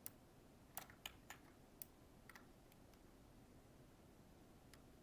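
Computer mouse and keyboard clicks while working in 3D modeling software: about half a dozen sharp, faint clicks in the first three seconds and one more near the end.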